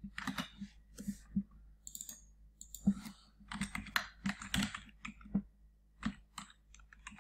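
Typing on a computer keyboard: irregular runs of short key clicks with brief pauses.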